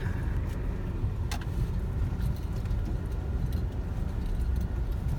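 Car driving, heard from inside the cabin: a steady low rumble of engine and tyres on a rough road, with a few small knocks and rattles, the sharpest about a second in.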